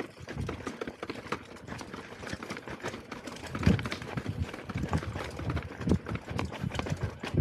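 Electric unicycle rolling over rough, rocky trail ground, with irregular knocks, thumps and rattles from the wheel hitting stones and bumps.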